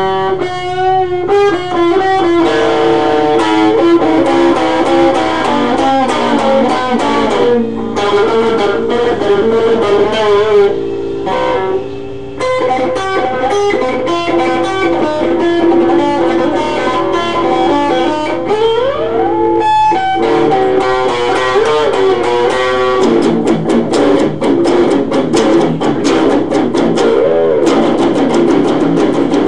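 Electric guitar improvising solo: held melodic notes, a slide up in pitch about two-thirds of the way through, then fast, rapid-fire picking toward the end.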